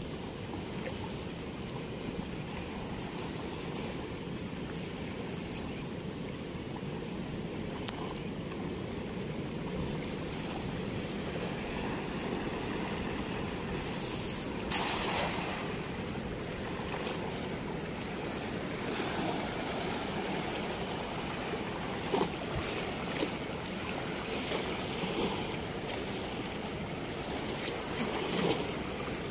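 Steady rush of river water with several splashes. The biggest splash comes about halfway through and lasts about a second; smaller ones follow later.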